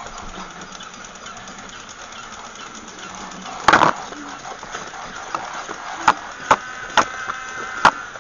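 Battery-operated walking toy animals whirring with a steady fine ticking, then a loud clatter about three and a half seconds in and four sharp clicks near the end.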